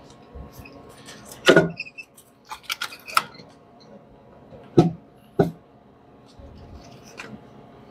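Hyundai 3.3 V6 intake manifold knocking and clicking against the engine as it is worked by hand onto its new gasket, not yet dropping into place. A few sharp knocks, the loudest about one and a half seconds in, then a quick run of clicks, and two more knocks near the five-second mark.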